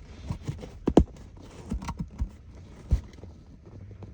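Irregular knocks and clicks from hands and parts being worked inside a truck passenger seat, about eight in all, the loudest about a second in.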